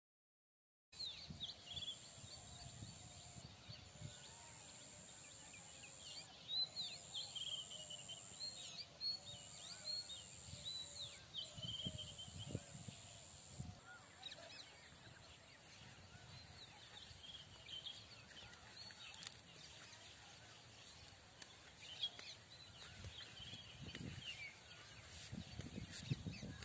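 Faint field ambience of many small birds chirping and calling, with a steady high-pitched whine that stops about halfway through and scattered low rumbles and knocks.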